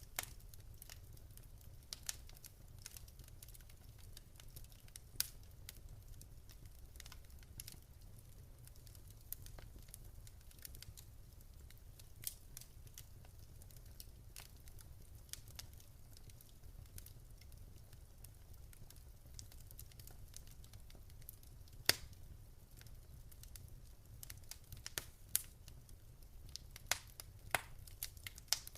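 Wood fire crackling in a fireplace: scattered sharp pops and snaps over a low steady rumble. One pop stands out loudest about two-thirds of the way through, and the pops come more often near the end.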